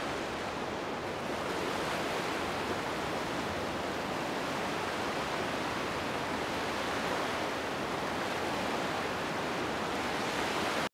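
A steady rushing hiss of noise with no pitch or rhythm, cutting off suddenly at the end.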